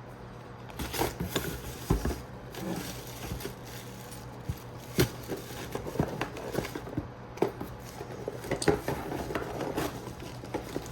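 Rummaging and handling of small plastic and metal parts: irregular clicks, taps and knocks as pieces such as tail-light housings are picked up and set down. A low steady hum runs underneath.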